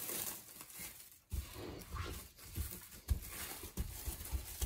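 Cling film crinkling and rustling as hands wrap and squeeze gingerbread dough into a log, with a run of dull thumps on the worktop from about a second in.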